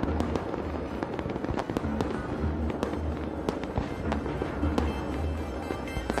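Fireworks bursting and crackling in quick, irregular succession over music with a pulsing bass beat.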